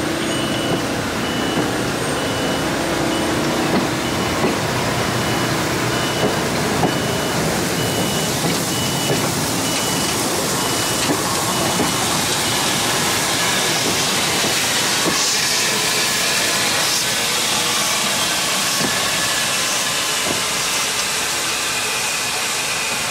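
A narrow-gauge steam freight train working, giving a steady loud hiss and rumble with small clicks. A high electronic beep pulses about twice a second through the first half.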